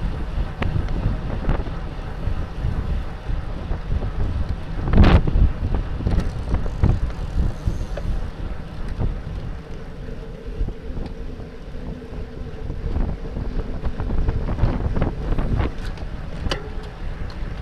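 Wind buffeting the microphone of a bicycle-mounted camera as the bike moves at racing speed, a steady rumble with a strong gust about five seconds in.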